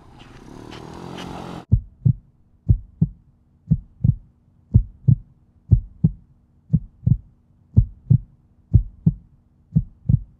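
Heartbeat sound effect: paired low thumps, lub-dub, repeating about once a second, starting about two seconds in, over a faint steady hum.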